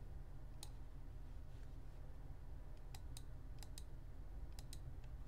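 Computer mouse button clicking, a few sharp clicks, mostly in quick press-and-release pairs, over a faint steady low hum.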